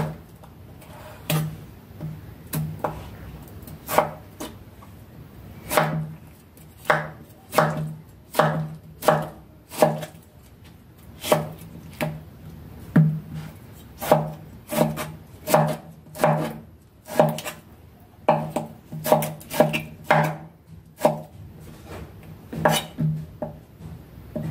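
A kitchen knife slicing tomatoes on a wooden cutting board. Each cut ends in a knock of the blade on the board, in an uneven run of about one or two a second, with a few short pauses.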